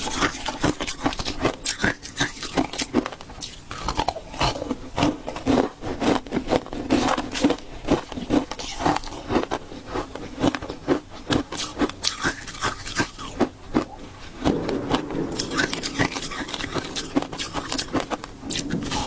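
Ice being bitten and chewed: a quick run of crisp, irregular crunches with no pause, growing denser about three quarters of the way through.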